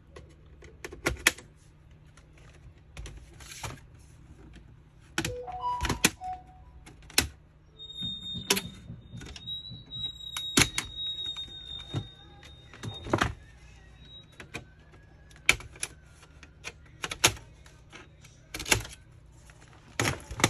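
Irregular sharp clicks and knocks of a laptop's plastic case and parts being pried apart and handled during disassembly. A faint steady high tone runs for several seconds in the middle.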